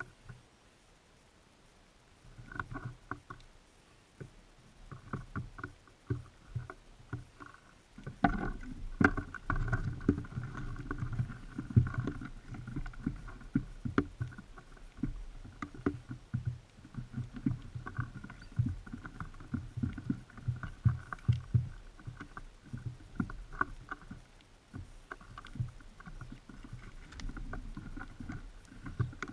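Birds at a seed feeder close to the microphone, their feet, wings and beaks making rapid irregular taps, knocks and scrabbling as they land, hop and peck at seed. It starts after about two seconds and gets much busier about eight seconds in.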